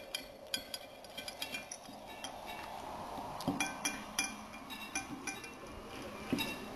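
Repeated light clinks of a dish or bowl being knocked as a kitten eats, each tap ringing briefly, at an uneven pace.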